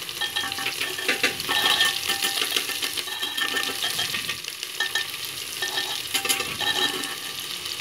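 Sliced onions and green chilli sizzling in hot mustard oil in a metal pressure cooker over a high flame. A spatula stirs them and scrapes repeatedly against the pot. The onions are softening, just short of turning light brown.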